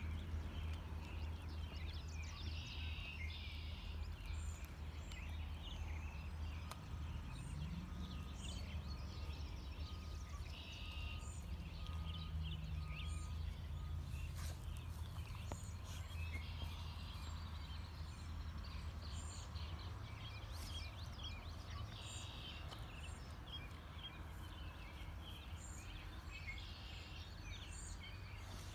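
Outdoor ambience: a steady low rumble with short high bird chirps recurring every few seconds.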